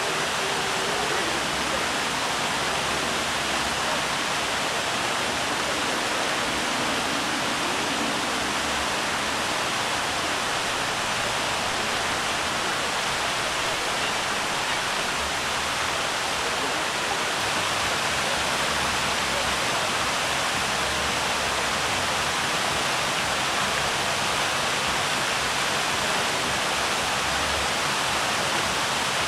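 Water from a large tiered display fountain's many jets spraying and splashing down into its basin: a steady, even rush of falling water.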